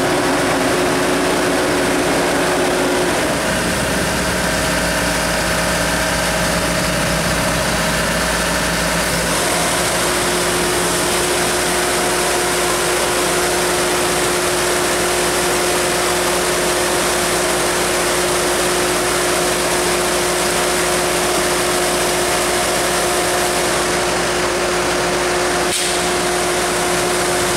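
A LOVOL combine harvester's diesel engine runs steadily, with its reversible radiator fan working: a strong rush of air over the engine note. The engine and fan sound shifts about three seconds in and again near ten seconds, which fits the fan alternating between sucking air in and blowing it out.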